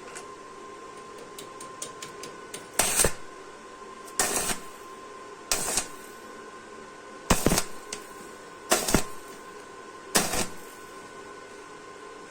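Welder striking a series of short tack welds: six brief crackling bursts of the arc, about a second and a half apart, over the machine's steady hum.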